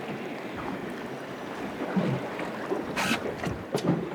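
Water slapping against the hull of an anchored small boat, with wind on the microphone, a few low thuds and a short sharp scrape and click near the end.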